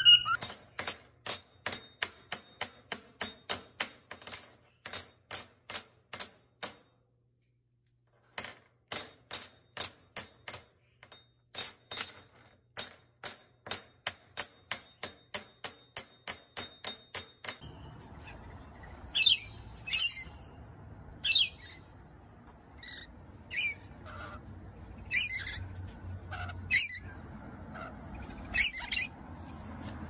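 A steady run of sharp, ringing taps, about three a second, with one short break about a quarter of the way through. About 18 s in the sound changes to short bird chirps and squawks over a steady outdoor background, from a rainbow lorikeet.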